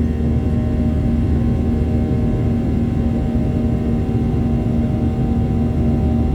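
Boeing 737-700's CFM56 jet engines running steadily, heard from inside the passenger cabin: a constant drone with a steady hum that neither rises nor falls.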